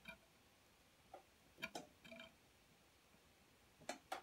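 Near silence broken by about half a dozen faint, scattered clicks and light taps of small tools and parts being handled on a workbench, while a charging jack is tinned for soldering.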